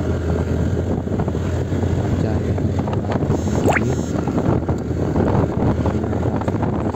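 Strong wind buffeting the phone's microphone, a steady heavy rumble. A short rising whistle cuts through it about three and a half seconds in.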